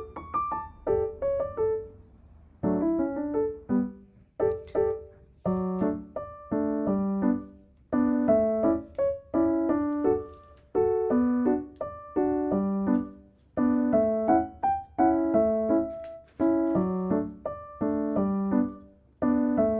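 Background music: a gentle piano melody playing short chords and notes in a regular, even rhythm.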